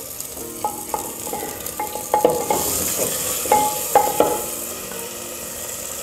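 White-breasted waterhen meat going into hot oil with onions and tomatoes in a clay cooking pot, sizzling and frying, the sizzle growing louder about halfway through as the meat settles in. Several short knocks against the clay pot, each ringing briefly, through the first two-thirds.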